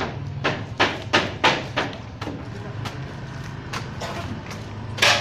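A series of sharp knocks: about five in quick succession in the first two seconds, a few fainter ones after, and a loud one near the end. A steady low hum runs underneath.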